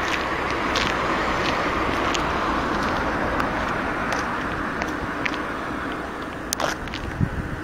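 John Deere 8230 tractor's 9.0-litre six-cylinder diesel engine running steadily, easing off a little near the end, with scattered light clicks.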